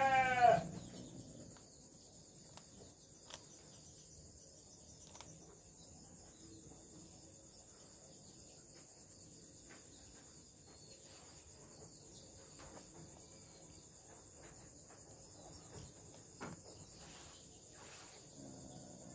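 A cat meows once, loudly, right at the start. After it, a steady high insect chirring, like crickets, runs on, with scattered faint clicks.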